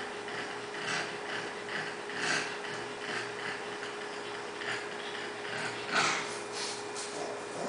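Home aquarium equipment running: a steady hum under soft, irregular ticks and water noises, with a slightly louder one about six seconds in.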